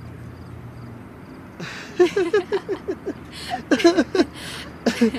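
A woman laughing: a run of short, quick pitched bursts that starts about a second and a half in, over a steady low background hum.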